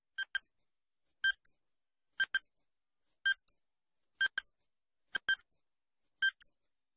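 Quiz countdown timer beeping about once a second, short high beeps that alternate between a quick double beep and a single one, counting down the answer time.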